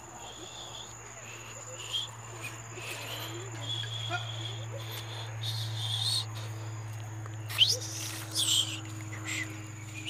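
Crickets trilling steadily in a high, even tone over a low steady hum, with a few short louder sounds near the end.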